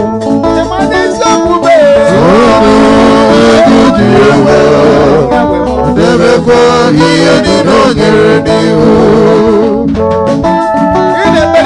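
Live gospel praise music from a band, with a drum kit, cymbals and keyboard playing and a voice singing with vibrato over them. The cymbals are loudest and the playing is fullest from about two seconds in until near the end.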